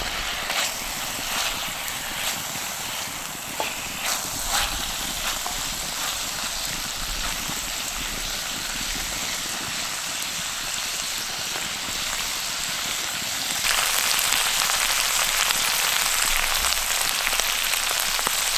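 Pork chops and onions sizzling in a cast iron pan over a campfire, with a few sharp crackles in the first five seconds. About 14 seconds in, the sizzle suddenly gets louder and brighter.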